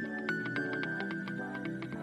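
Background music with a quick, steady beat under held, sustained notes.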